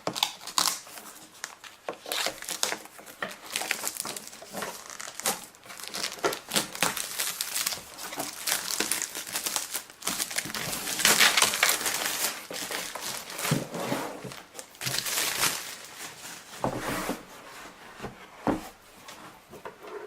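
Packaging crinkling, rustling and tearing as a package is unwrapped by hand, in irregular bursts that are loudest about halfway through.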